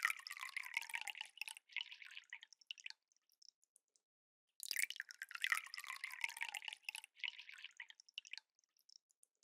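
Soju poured from its bottle into a small glass, twice. The first pour is already running and tails off into glugs and drips about a second and a half in. The second starts about halfway through and trails off the same way; in each pour a pitch falls steadily as it runs.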